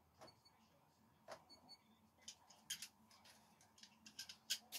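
Faint, scattered clicks and clinks of a handful of metal screwdrivers being handled, collected from the wooden target and knocked together in the hand, with the sharpest clicks near the end.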